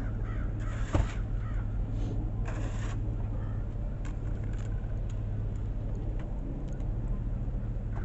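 A snow shovel scraping over a sidewalk in a few short strokes. A car door shuts with a sharp thump about a second in, over a steady low hum.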